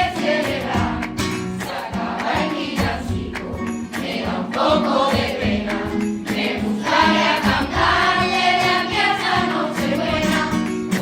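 A school choir singing a Spanish Christmas carol (villancico) over a steady instrumental accompaniment.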